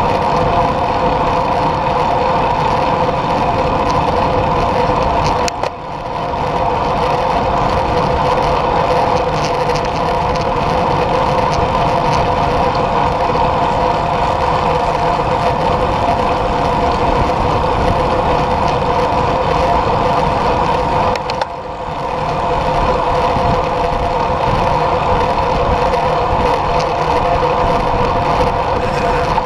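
Steady rush of wind over a bike-mounted camera's microphone, with tyre noise on asphalt, from a road bicycle riding at speed. The rush drops away briefly twice.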